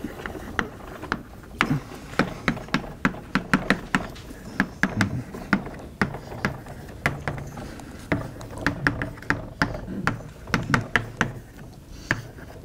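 Chalk writing on a blackboard: a quick, irregular run of sharp taps, several a second, as the letters are written out.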